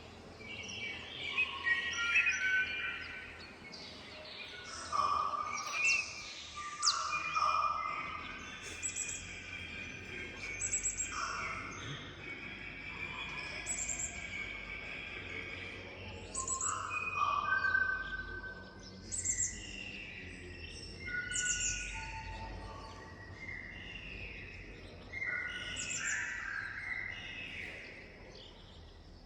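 Recorded bird songs and calls played back through the speakers of an audiovisual installation: many overlapping chirps, whistles and trills throughout, over a faint low hum.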